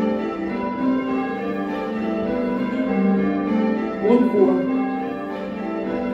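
A ring of six church bells, a 1978 Whitechapel six with the tenor in G, ringing call changes, the bells striking one after another in a steady cycle, heard from the ringing chamber below. About four seconds in, a voice calls out briefly over the bells.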